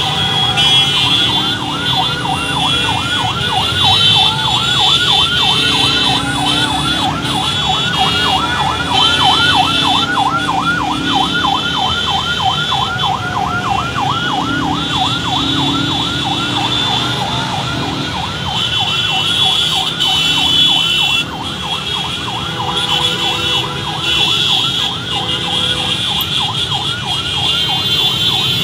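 Siren wailing in a rapid, repeating yelp, several sweeps a second, over the steady noise of motorbike and car traffic in a slow-moving motorcade.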